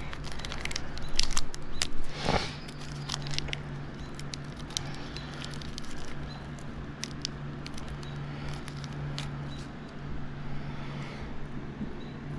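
Motorcycle drive chain being handled to fit its master link: sharp metallic clicks and rattles of the links, thickest in the first few seconds with a brief rustle about two seconds in, then sparser. A steady low hum runs underneath.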